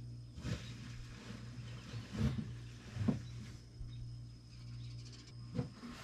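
Small hermetic refrigeration compressor of a Haier mini fridge running steadily with a low hum, a few seconds after starting up, showing the fridge works. About four short knocks and rustles come from a hand touching the tubing around it.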